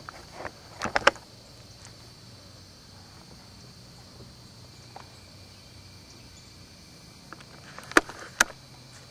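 Steady high insect drone in the background, with a few sharp clicks about a second in and two more near the end.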